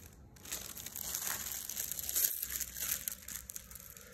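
Clear plastic wrapping on a vintage firecracker brick crinkling as the brick is handled: a dense run of crackles starting about half a second in.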